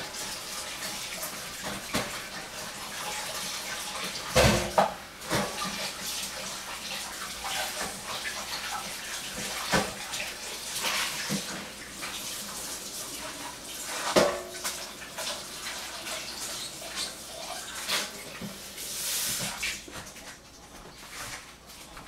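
Water running from a kitchen tap into a sink in a steady rush, with a few sharp knocks and clatters of kitchenware against the sink.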